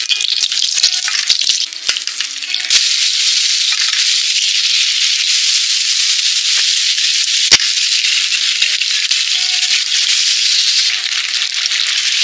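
Food frying in hot oil: a loud, steady sizzle, with a few sharp clicks and knocks in the first few seconds and one more sharp click about midway.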